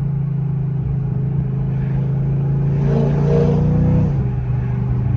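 Audi S8's twin-turbo V8, fitted with catless downpipes and a big intake, running hard under load. Its pitch edges up a little, then drops about four seconds in.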